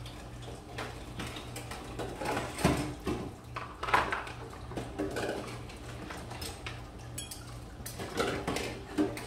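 Kitchen dishes and cutlery being handled: irregular clinks, knocks and clatters, loudest about three and four seconds in, over a low steady hum.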